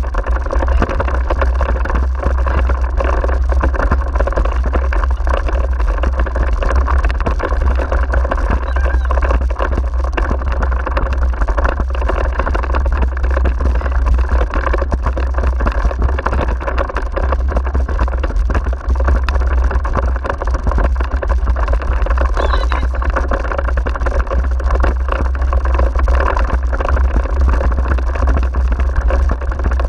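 Steady rumble and rattle of a dog-pulled wheeled rig rolling over a rough forest track, heard through a camera mounted on the rig's handlebar, with wind buffeting the microphone.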